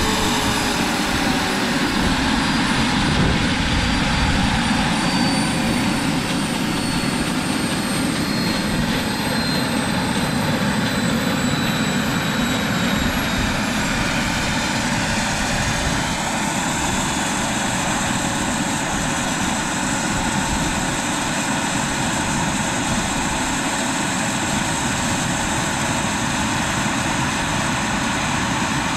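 Model turbine engine of a Vario MD600N radio-controlled scale helicopter running, a steady jet whine over the rush of the spinning rotor. The high whine drifts slightly lower, then steps up in pitch a little past halfway.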